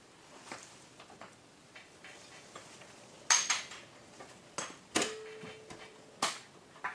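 Light clinks and taps of handling a garage door opener's manual release and its small cable. There is a louder clink about three seconds in, another about five seconds in that rings briefly, and a last one near the end.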